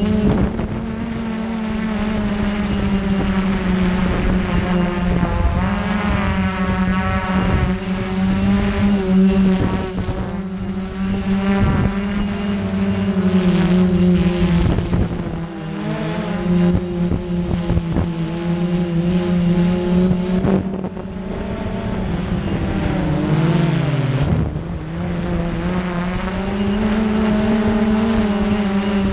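Multirotor mapping drone's electric propeller motors humming in flight, heard up close from the drone itself. The pitch wavers up and down as the throttle changes and drops sharply once, late on.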